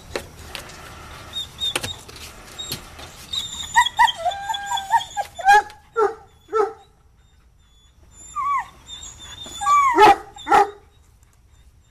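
A dog whining and yipping in short, high calls that fall in pitch: a longer whine about four seconds in, a quick run of yips, a pause, then more yips near the end. Light clicks in the first few seconds.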